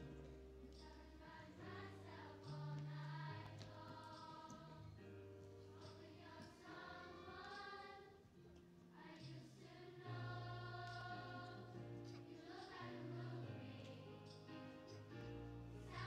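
Massed children's choir singing, held notes moving from phrase to phrase over steady low notes from the instrumental accompaniment, heard faintly.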